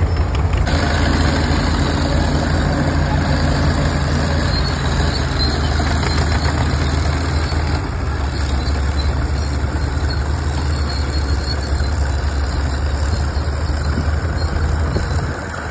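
Allis-Chalmers crawler tractor's engine running steadily under load as it pulls a multi-bottom moldboard plow through the soil, a constant low drone.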